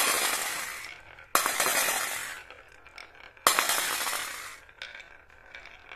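Glass marbles rolling off a wooden slope track and dropping into a stainless steel bowl of marbles. One clinking clatter is dying away at the start, then two more come suddenly, about two seconds apart, each ringing out over about a second, with faint small clicks between.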